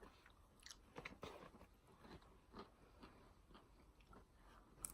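Faint chewing, with soft irregular crunches and mouth clicks, as someone eats fast food.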